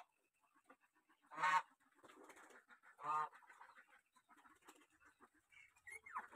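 Domestic fowl calling nearby: two short honking calls about a second and a half apart.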